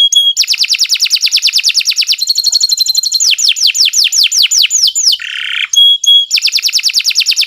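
Domestic canary singing a long, unbroken song. It moves through fast trills of rapid repeated high notes, a run of quick downward-sweeping notes, a short buzzy phrase and a brief held whistle before another fast trill.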